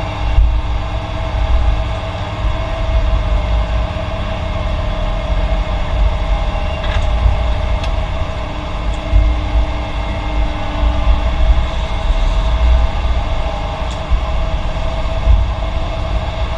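Heavy diesel construction machinery running with a deep steady rumble and a few sharp knocks.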